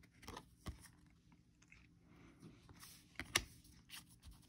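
Faint clicks and soft scrapes of football trading cards being handled and flipped off a stack, with a sharper tap a little over three seconds in.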